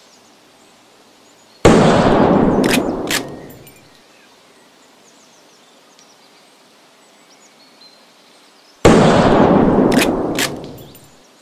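Two gunshots about seven seconds apart, each a sudden loud blast with a long echo fading over about two seconds, and two sharp clicks a second or so after each shot. Faint bird chirps in the quiet between.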